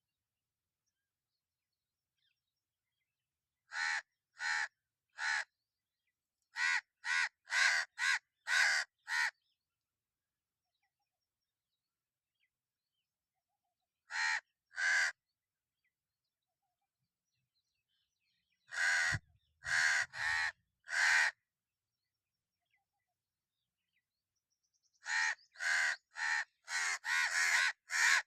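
Hooded crow cawing in harsh, short calls, in bursts of a few caws at a time with silent gaps between, ending in a fast run of about ten caws.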